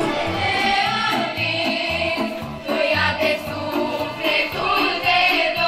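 Romanian folk hora music with a group of voices singing and a steady dance beat.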